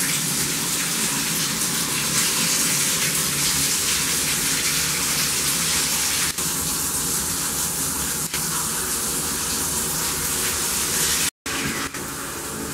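Bathtub faucet running full, water pouring steadily into a filling tub. It cuts off abruptly near the end, then comes back quieter.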